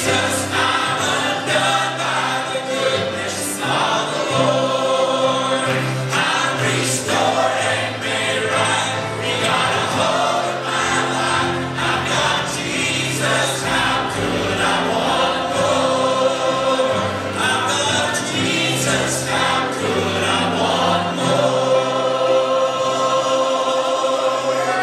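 Church choir singing a gospel song, with lead singers on microphones, over instrumental accompaniment with a steady bass line.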